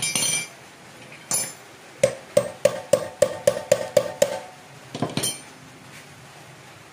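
A hammer striking a metal part about nine times in quick, even succession, about four blows a second, each with a short metallic ring. A brief clatter of metal parts comes at the start and again near the end.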